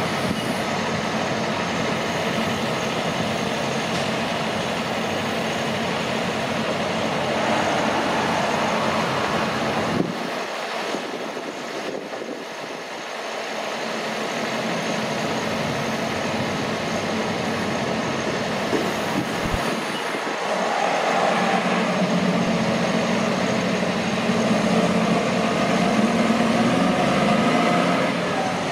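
Heavy diesel trucks driving past with engine and road noise. Near the end, one truck's engine comes up louder with a wavering note as it pulls through.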